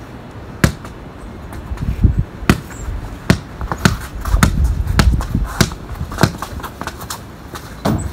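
Basketball bouncing on concrete as it is dribbled, a string of sharp, irregular bounces about every half second to a second.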